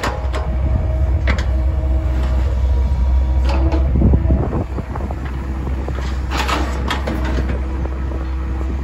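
CAT 307B midi excavator's diesel engine running steadily under load, with a whine from the hydraulics that comes and goes as the boom and bucket move. Several clanks and rattles of stone as the bucket digs into a gravel pile, the loudest about a second in, midway, and again near the end.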